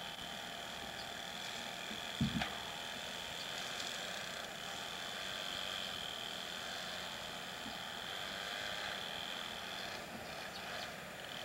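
Quiet evening outdoor ambience: a steady high-pitched drone over faint hiss, with one short low thump about two seconds in.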